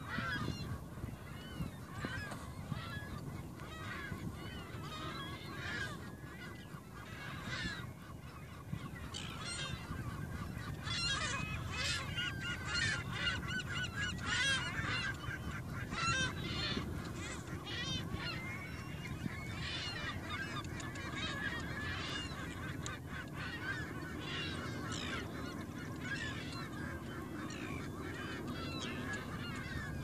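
Waterbirds in a crowded island colony calling constantly, many short calls overlapping into a chorus that is busiest around the middle, over a steady low noise.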